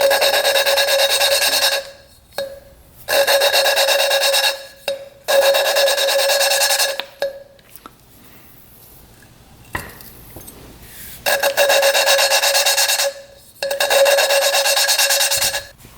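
Valve lapping: an intake valve turned against its seat in a motorcycle-engine cylinder head with grinding compound, using a suction-cup lapping stick. It makes a gritty, ringing rasp in five bursts of about two seconds each, with a longer pause in the middle.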